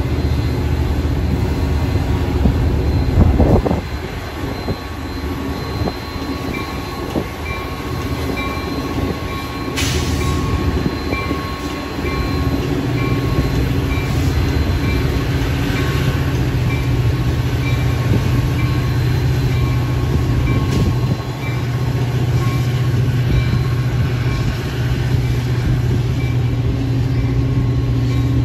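Metra commuter train of bi-level gallery cars hauled by a diesel locomotive, moving away along the station tracks: the locomotive's engine gives a steady low drone under the rumble of the cars' wheels on the rails. A louder low surge comes about three seconds in.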